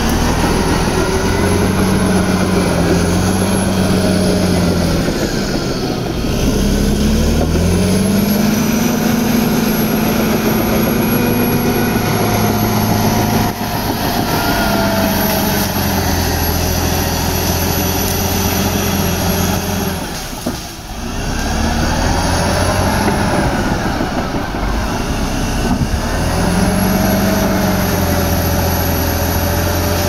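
Heavy diesel engine of a crawler bulldozer working, its note rising and falling repeatedly under load, with a brief drop in level about two-thirds of the way through.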